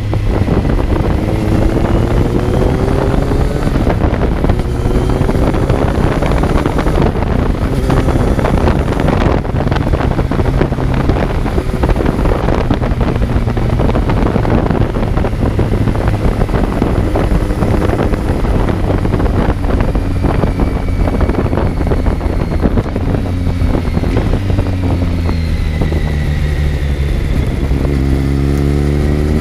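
A Kawasaki Z900's inline-four engine heard on board while riding. The revs rise in the first few seconds, then the engine holds steady under heavy wind noise on the microphone. Near the end the revs fall and then climb again.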